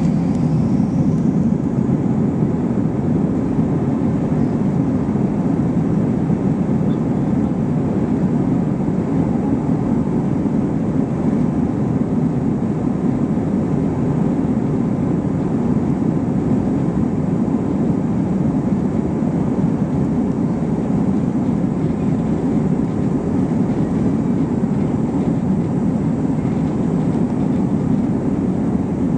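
Steady low rumble inside the cabin of an Airbus A321-231 airliner: engine and airflow noise, unchanging throughout.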